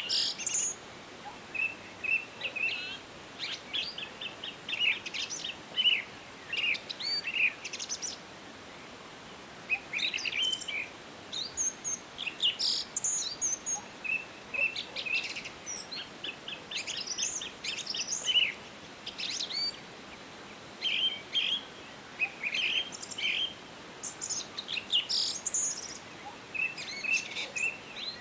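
Several songbirds singing and calling at once: many short chirps, quick trills and rapid rattling runs, over a faint steady hiss of forest background.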